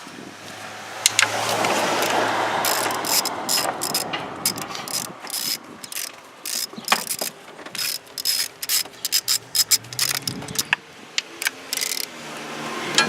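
Hand ratchet wrench clicking in quick runs of strokes, with metal clinks and a rustling scrape over the first few seconds.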